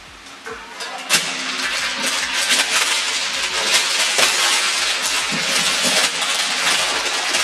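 Plastic gift wrapping crinkling and tearing as a wrapped box is pulled open, a loud rough crackle that starts with a sharp rip about a second in.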